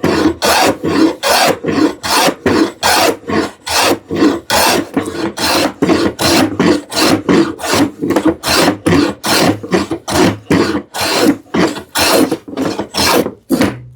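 Hand plane taking quick, short, repeated strokes across the edge of a wooden drawer front, about two scraping strokes a second, shaving it down to fit the angled opening.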